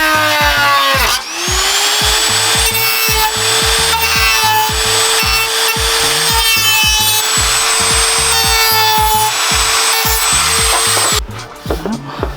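Background music with a steady, driving beat and a synth tone that slides down and then back up about a second in. The music stops abruptly near the end, leaving quieter irregular handling sounds.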